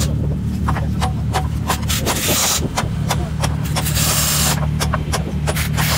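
Hand-tool repair work on a side-by-side's front end: scattered sharp clicks and scraping, with two short bursts of hiss, over a steady low engine hum.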